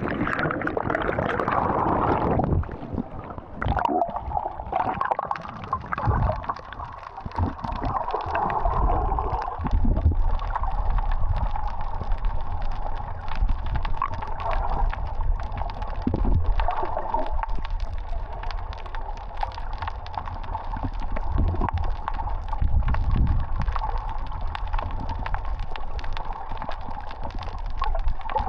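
Muffled gurgling and sloshing of water heard from a camera submerged in the sea, with a constant low rumble and many small irregular pops.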